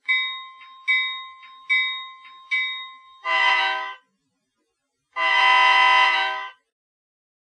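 Sound-equipped HO-scale model diesel locomotive's speaker playing a locomotive bell, four rings about a second apart. Then come two horn blasts, a short one and a longer one.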